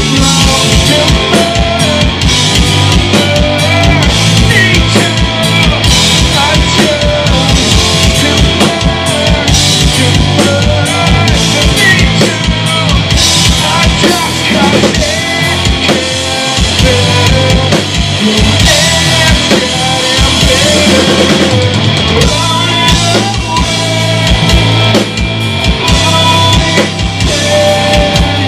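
A rock band playing live and loud on drum kit, bass guitar and electric guitar.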